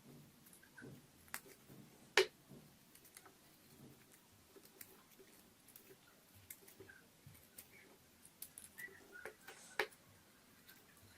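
Slime being squeezed and poked by hand: irregular sticky clicks and small pops, the sharpest about two seconds in and again near the end.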